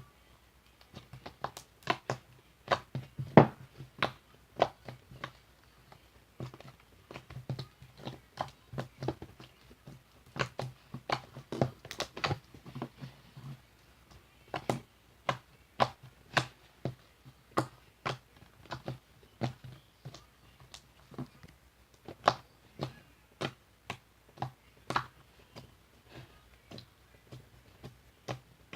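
Slime being squeezed and poked by hand, making sharp, irregular clicks and pops, two or three a second.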